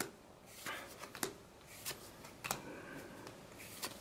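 Trading cards handled in the hand, each card slid off the front of the stack to the back, making about six soft card snaps at uneven intervals.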